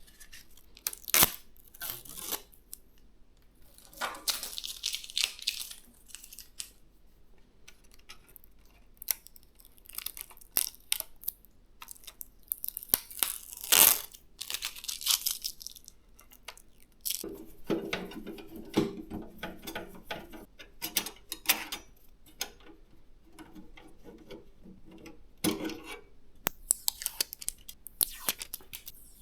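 Hands working on a PC build: small plastic and metal clicks, taps and knocks of parts being handled, with a few stretches of rustling, tearing-like noise.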